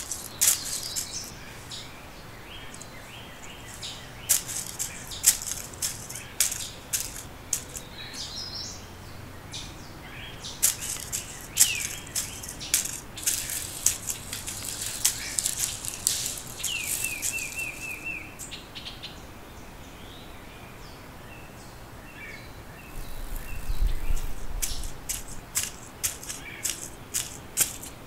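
Birds chirping, with short gliding notes and a quick run of repeated chirps, over many sharp clicks and crackles. A low rumble swells briefly near the end.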